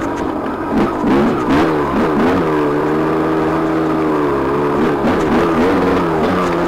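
TM 300 dirt bike engine under way on a trail, the revs rising and falling with throttle blips about a second in and again around five seconds in, running steadier in between.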